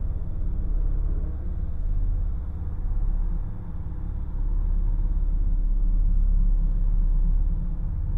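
Low, rumbling horror-film drone that swells and eases slowly, with a faint steady hum above it.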